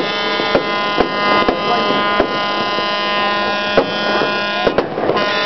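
Fireworks going off in a run of sharp bangs and cracks, roughly one every half second to second, over a steady drone of several held tones.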